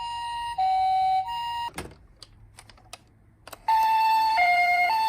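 Toy ambulance's electronic two-tone siren, switching back and forth between a higher and a lower pitch about every half second. It cuts off about a second and a half in, a few sharp clicks follow in the quiet, and the siren starts again, louder, at about three and a half seconds.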